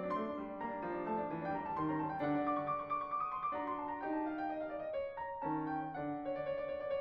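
Background instrumental music: a keyboard melody over held chords, the notes changing every half second or so.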